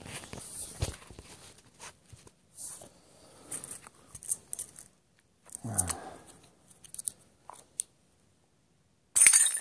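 Metal transmission parts being handled: intermittent scrapes, clicks and rustles as the center differential is worked apart, with a loud sharp clatter near the end.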